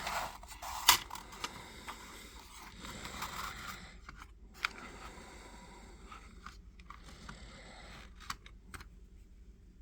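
Handling of a small cardboard box of .22 cartridges: rustling and scraping with a few sharp clicks, the loudest about a second in, then quieter with only scattered clicks.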